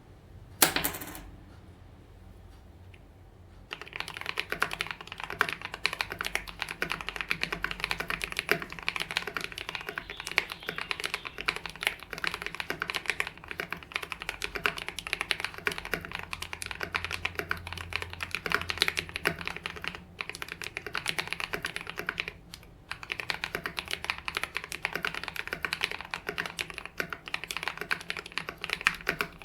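Typing on an Idobao ID80 mechanical keyboard with lubed KTT Red Wine linear switches, the case damped with polyfill, PE foam and masking tape: a continuous, fast run of creamy key strokes that starts about four seconds in and breaks off briefly twice past the middle. A single sharp knock comes under a second in, before the typing starts.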